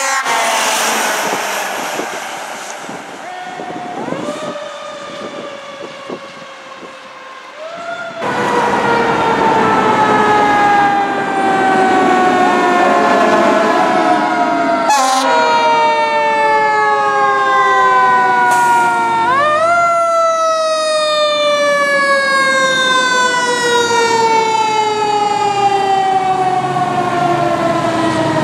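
Fire truck sirens: a siren repeatedly winds up quickly and then coasts down in long, slow falling wails, the pattern of a mechanical siren. It is fainter for the first several seconds and loud from about eight seconds in, with the final wail falling steadily over the last nine seconds or so.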